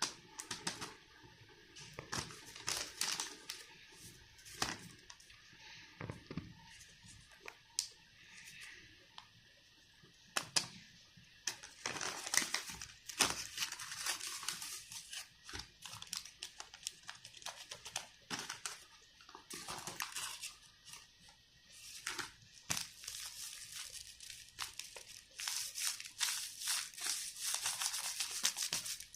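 A blind-bag packet crinkling and tearing as it is handled and opened by hand: irregular crackles and rustles, busiest midway and again near the end.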